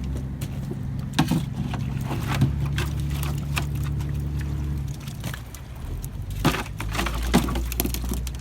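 Boat engine running at a steady low pitch, dropping away about five seconds in and coming back a second and a half later, with a few sharp knocks and clatters over it.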